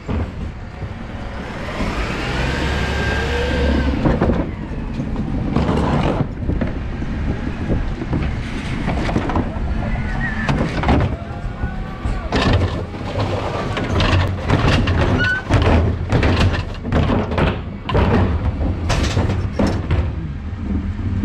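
Refuse truck engine running at the rear of a Dennis Elite 6 while wheelie bins are rolled up and emptied by its Terberg electric bin lift. Bins clatter and bang repeatedly, with short whines that rise and fall from the lift.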